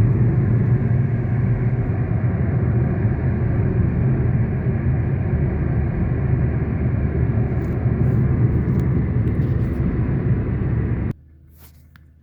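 Hyundai Solaris's G4FC 1.6-litre four-cylinder engine and road noise heard inside the cabin while driving, a steady rumble. It cuts off abruptly about 11 seconds in.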